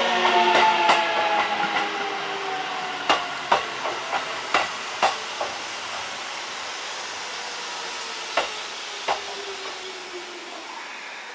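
JR Central 373 series train's GTO-VVVF inverter and traction motors whining as the train pulls away, the tones sliding down in pitch and fading. A run of wheel clicks over rail joints comes a few seconds in, and two more come later.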